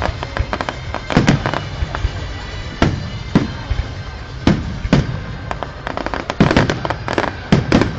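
Fireworks display: many shells bursting in quick, irregular succession, with sharp bangs and clusters of crackling reports, the densest clusters about a second in and around six to seven seconds in.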